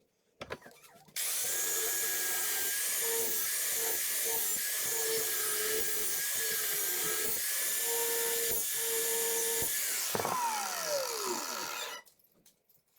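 Electric power tool starting about a second in and running at a steady whine while working solid oak, its note dipping in short stretches under load. About ten seconds in it is switched off and winds down, the pitch falling until it stops.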